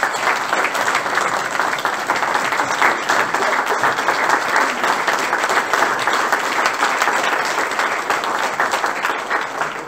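Audience applauding: dense, steady clapping from a large crowd that tapers off near the end.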